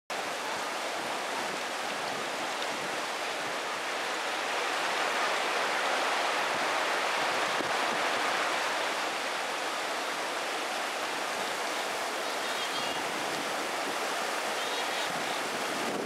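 A river in flood from typhoon rains: a steady rushing of fast, churning muddy water. It swells slightly about a third of the way in.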